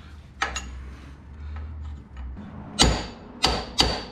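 Hammer striking a steel pin punch held against a metal fitting on the engine: three sharp metallic strikes with a slight ring, starting about three seconds in. A light knock comes about half a second in.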